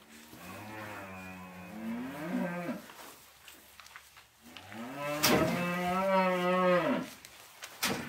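A cow mooing twice, two long calls of a couple of seconds each, the second louder. A sharp knock sounds during the second call and another near the end.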